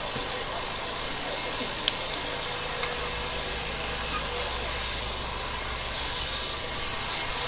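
An engine running steadily outdoors over a constant hiss and the murmur of a crowd, with a low hum that comes in about three seconds in. There is a single sharp click a couple of seconds in.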